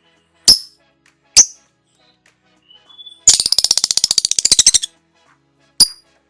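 Lovebird calling: two sharp, high chirps, then about a second and a half of fast chattering trill (the 'ngekek' chatter), and one more chirp near the end.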